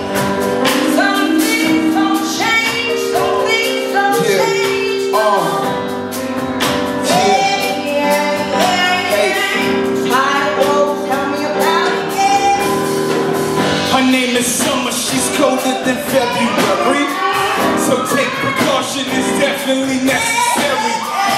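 A woman and a man singing a duet live with a band, a drum kit and cymbals keeping the beat.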